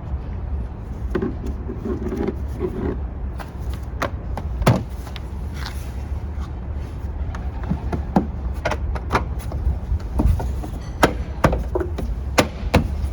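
Irregular clicks and knocks of a car's plastic trim panel being pressed and snapped back onto its clips, a dozen or so sharp taps scattered through, over a steady low rumble.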